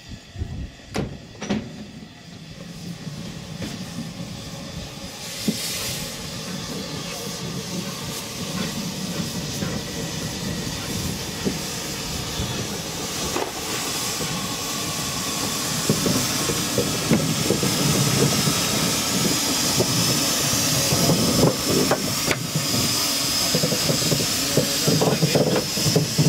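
Narrow-gauge steam locomotive letting off steam: a steady hiss that grows gradually louder, turning sharper and higher-pitched in the last third, over a low rumble. A few sharp knocks come in the first couple of seconds.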